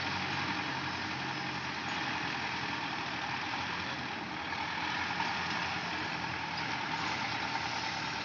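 Farm tractor's diesel engine running steadily as it pulls a heavily loaded sugarcane trolley.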